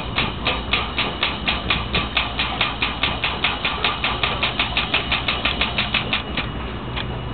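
Small oil pump running with a fast, even clicking, about five clicks a second, quickening to about eight before it stops shortly before the end, over a low steady hum. It is drawing engine oil out through a quick-drain hose.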